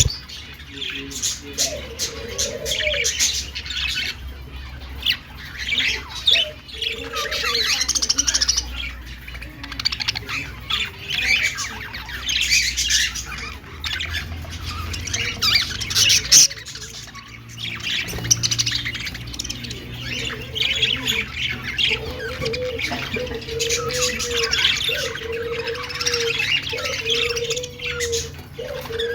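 Budgerigars chattering nonstop, a busy mix of warbled chirps and harsh squawks. In the last third a lower call repeats about once a second.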